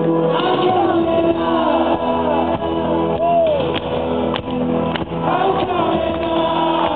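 Live rock band playing loudly, with a male lead vocal sung over the band, heard from within the audience in a large concert hall.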